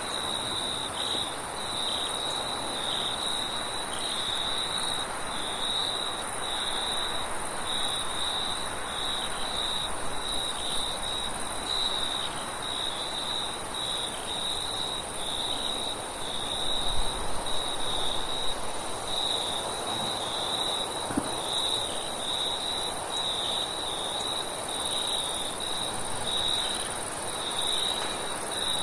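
Crickets chirping at night in a steady high pulsing trill, with a fainter, higher insect hiss above it and an even rush of wind beneath.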